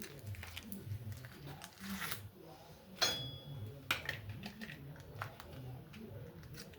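Hand work on metal parts: scattered clicks and knocks, with one sharp metal clink about three seconds in that rings briefly.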